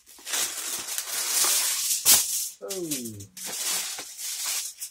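Aluminum foil crinkling and rustling as a sheet is pulled off the roll, with a sharp crackle about two seconds in as the sheet tears.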